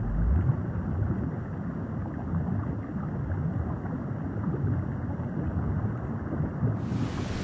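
Steady low rush of wind and water from an outrigger canoe on open ocean, muffled with the highs cut away; near the end the sound opens up to a full, bright rush of wind and surf.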